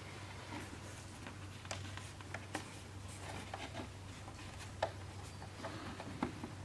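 Light scattered clicks and taps from handling the foam and plastic parts of a model airplane kit being assembled, over a steady low hum.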